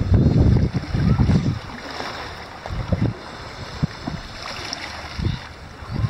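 Wind buffeting the microphone in uneven gusts, strongest in the first second and a half, over a steady hiss of the sea.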